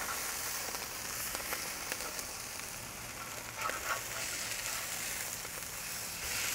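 American Wagyu burger patties sizzling steadily on a charcoal grill's grate over direct heat as they get their first flip, with a few light clicks of the spatula on the grate.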